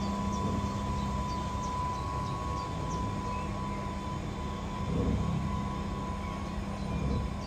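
Train passing on the line: a steady low rumble with a constant hum, with heavier low thumps about five and seven seconds in.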